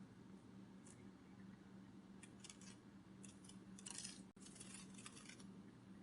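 Faint, quick fluttering flicks, like wings beating, coming in irregular short clusters: about a second in, then several between two and five and a half seconds in. A low steady hum lies under them.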